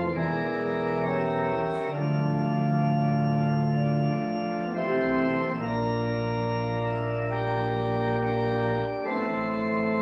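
Organ playing slow, sustained chords, each held for about one to three seconds before moving to the next.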